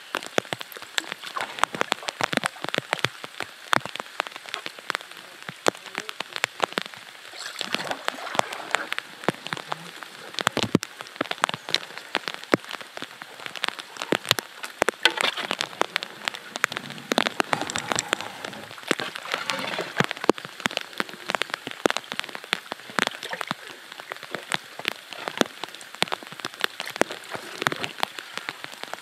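Steady rain falling on the water, a dense, irregular patter of separate sharp drop hits.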